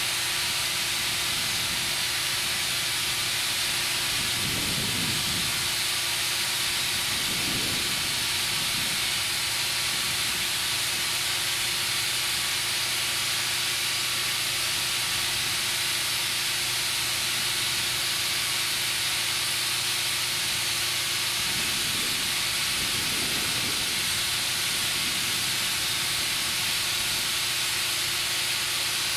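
Compressed air hissing steadily into a Firestone 20.8R38 radial tractor tire as it inflates.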